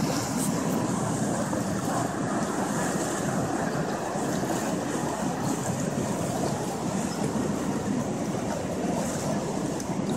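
Steady rush of choppy harbour water and wind around a moving boat.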